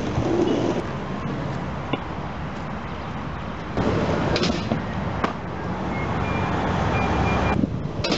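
Skateboard wheels rolling over rough asphalt, with a few sharp clacks and knocks of the board.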